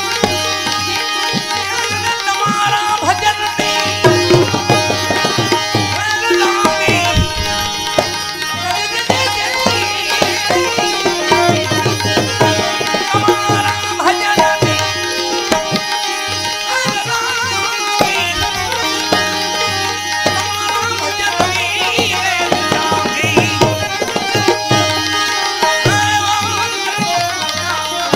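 Instrumental passage of a Gujarati devotional bhajan: tabla drumming under a held melody instrument, with no singing.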